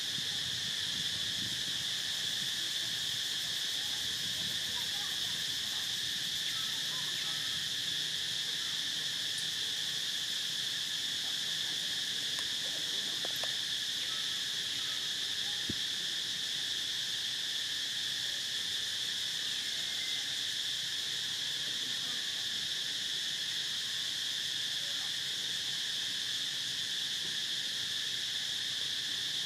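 A steady insect chorus: a continuous, unbroken high-pitched shrilling with a fainter lower band beneath it.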